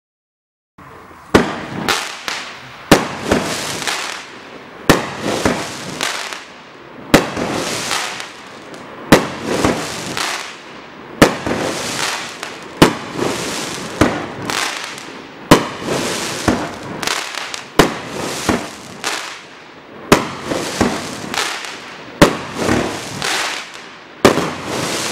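Star Strength 350-gram 15-shot consumer firework cake firing its shots one after another, starting about a second in. A sharp report comes about every one to two seconds, each followed by a fading crackle and hiss from the breaking stars.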